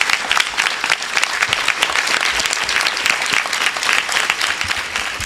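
An audience applauding, with many hands clapping steadily and dense, sustained applause.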